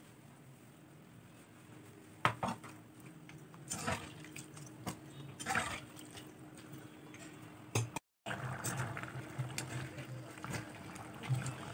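A steel spatula stirs and scrapes chunks of mutton in thick gravy in a pot, with a few sharp clinks against the pot. Near the end the gravy bubbles steadily as it cooks down to absorb the water.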